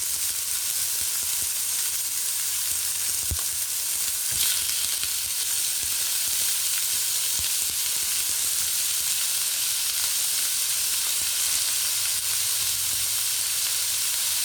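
Chicken pieces pan-frying in hot oil: a steady sizzle, with a few knocks about three, four and seven seconds in.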